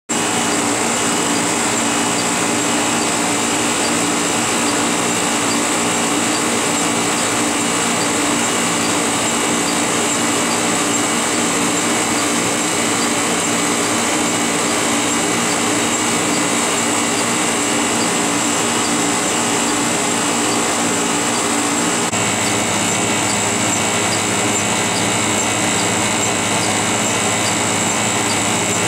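CTI-Cryogenics 9600 helium compressor for a cryopump running with a steady mechanical hum and hiss. Its lower tone changes slightly about three-quarters of the way through.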